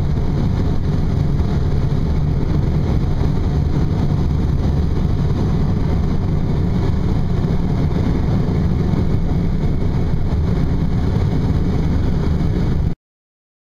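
Steady rush of air around a glider's cockpit canopy in flight, a constant low noise that cuts off abruptly near the end.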